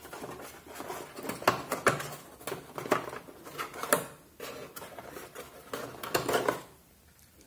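Hands handling a moulded plastic tool case, working a laser target card out of a slot in the case insert: a string of plastic clicks and knocks with rustling in between. The handling quietens near the end.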